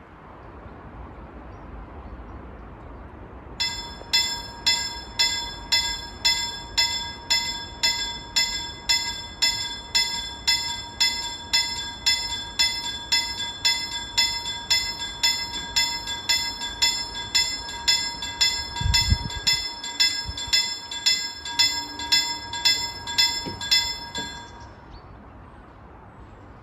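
Level crossing warning bell ringing in even strokes, about two a second, as the crossing activates. After about twenty seconds it stops, with the full barriers down.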